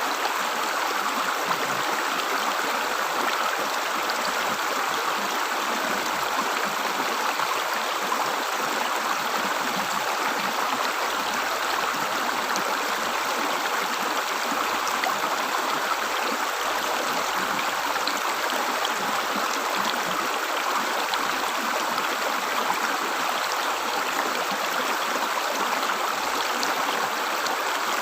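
River water gurgling and flowing steadily.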